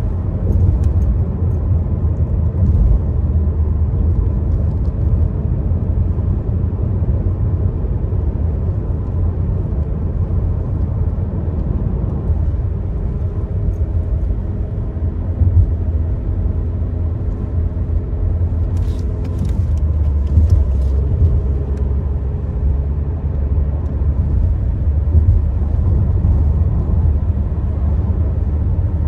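Car cabin noise while driving: a steady low rumble of engine and tyres. A faint engine hum rises through it in the middle, and a few light clicks come about two-thirds of the way through.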